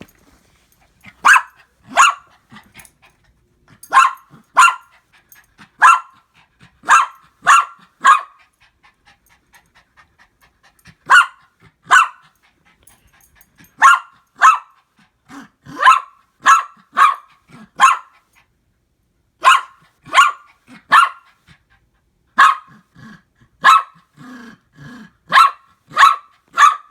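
A dog barking over and over: about two dozen loud, sharp barks in runs of two to four, with short pauses between the runs.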